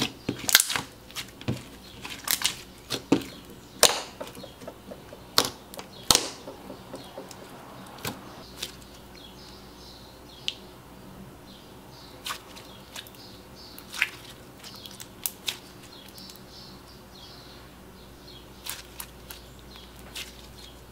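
Clear glitter slime with sprinkles being pressed and squeezed by hand, giving irregular sharp, wet clicks and pops. The clicks come thick and fast for the first several seconds, then thin out to an occasional pop.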